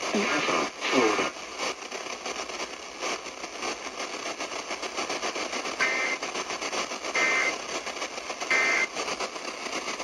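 Weather alert radio's speaker hissing with static after a snatch of broadcast voice ends about a second in. Three short, high tones come about 1.4 s apart near the end.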